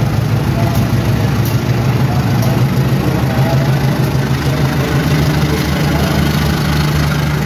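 KAI diesel-electric locomotive's engine running with a steady low drone as it slowly hauls a passenger train past.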